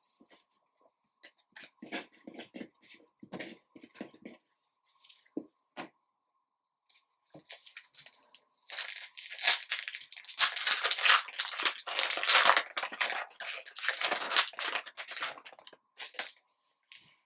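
Trading card pack wrapper being torn open and crinkled in the hands, a dense crackling that lasts several seconds from about halfway in. Before it, a few light taps and slides of cards being handled on a table.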